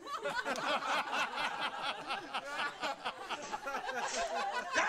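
Several people laughing and chattering over one another, with quick pulsing laughs starting suddenly at the beginning.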